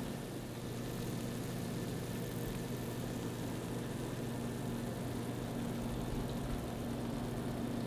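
A steady low hum from a kitchen appliance motor running, even and unchanging throughout.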